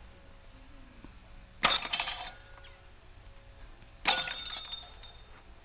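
Ceiling fan parts being smashed: two crashes about two and a half seconds apart, each followed by a bright, ringing, shattering tail that dies away within a second.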